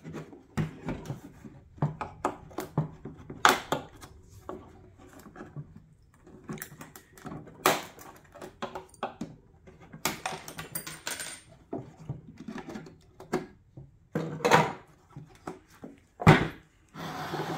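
Flathead screwdriver prying the retaining clips off a car headlight housing: irregular clicks, scrapes and sharp clacks of the tool and clips against the hard plastic, with the loudest clack near the end.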